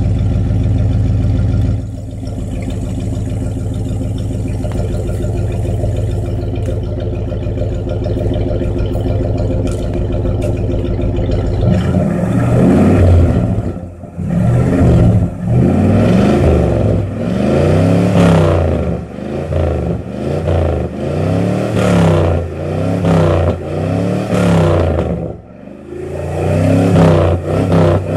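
1965 Ford Custom's engine through dual straight pipes, idling steadily, then from about twelve seconds in revved in a string of short blips, roughly one every two seconds, each rising and falling in pitch.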